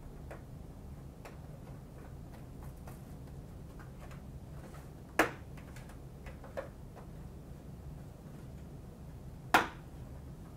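Ratchet suspension keys of a Bullard GenVX blast helmet being pushed into the shell's key slots. Two sharp clicks come about five and nine and a half seconds in, with a few fainter ticks of handling between. Each click is the sign that a key is seated and secure.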